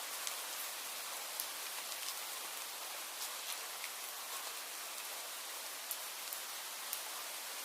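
Steady rain falling, an even hiss with scattered sharp drips and drop ticks.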